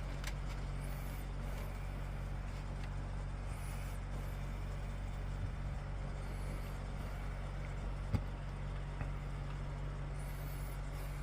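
Steady low hum with faint background noise, and a single short click about eight seconds in.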